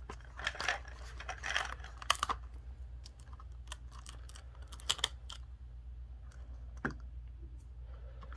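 A Mini Brands blind ball's plastic capsule being pried apart and its glossy printed plastic wrap torn at the seam: irregular crinkling and sharp plastic clicks, busiest in the first couple of seconds, then a few scattered clicks. A steady low hum runs underneath.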